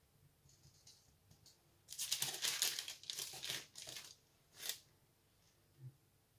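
Baking paper crinkling and rustling as hands lift and fold puff-pastry turnovers on it: a run of crackles lasting about two seconds, starting about two seconds in, then one short crinkle.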